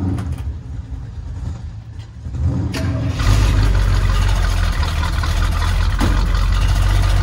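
Engine of a 1965 International pickup, lower and uneven at first, then a sharp start about three seconds in, after which it runs with a loud, steady low rumble.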